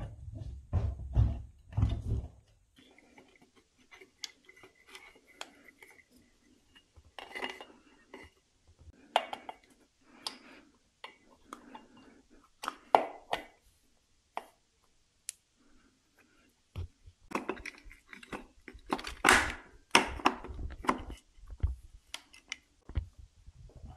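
Hand tools and metal engine parts clinking and knocking at irregular intervals as a motorcycle cylinder head is assembled and fitted by hand, some strikes ringing briefly; the loudest run of knocks comes near the end.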